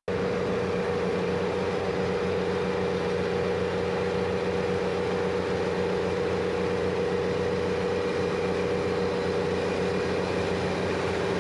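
Heavy farm machinery running steadily: a constant mechanical hum with a few fixed low tones that do not rise or fall.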